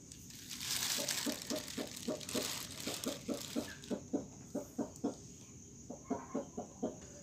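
Hen clucking: a rapid run of short, repeated clucks, about three or four a second, in bursts. A rustling hiss runs under the first few seconds, and a steady high insect chirring sounds in the background.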